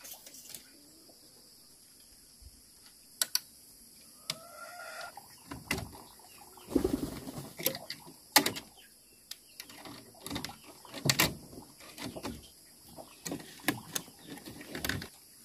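Irregular sharp knocks and clicks, a dozen or so spread unevenly, with a short bird call about four seconds in.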